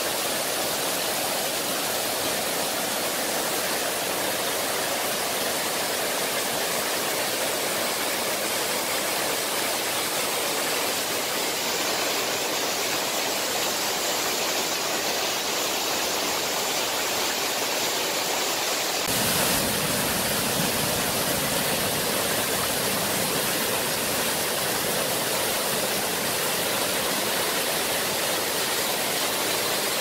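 Steady rushing of a waterfall, white water pouring down over rock. About two-thirds of the way through it changes abruptly to a deeper, fuller rush.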